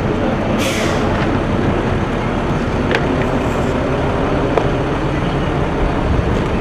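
Motor vehicle engines running steadily close by. There is a short hiss about half a second in and a few light clicks later.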